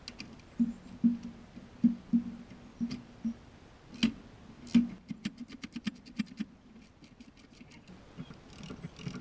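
Hand ratchet snugging up a suspension bolt (the lower stabilizer bolt at the lower control arm), ahead of torquing it. First come several sharp metallic knocks and clicks as the socket is worked onto the bolt. About five seconds in there is a quick even run of ratchet pawl clicks, then a second, fainter run shortly after.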